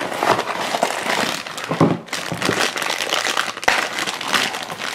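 A cardboard blind box being opened and a shiny black plastic wrapper bag crinkled and rustled in the hands: a dense run of crackling with a brief pause about two seconds in and a sharp snap late on.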